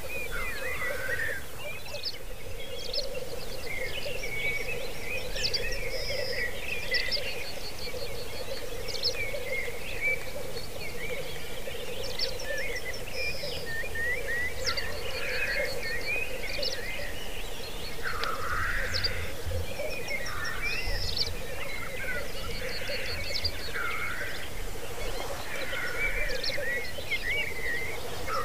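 Black grouse lekking: the males' continuous bubbling song, with drawn-out hissing calls and other birds' higher chirps and rapid ticking trills over it.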